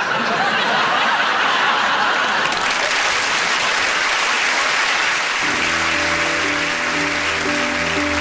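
Studio audience applauding. About five and a half seconds in, music begins under it: held chords over a low bass note, the intro of a song.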